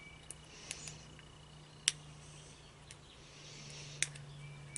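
A steel pick clicking and scraping against a small-engine carburetor as it pries at a needle seat that is stuck fast, swollen from old fuel. There are a handful of sharp little clicks, the loudest about two seconds in, over a faint steady hum.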